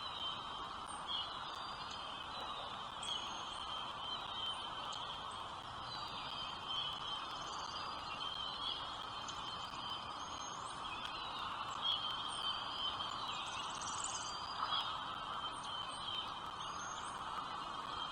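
Small birds chirping, with many short high chirps scattered throughout over a steady background hiss.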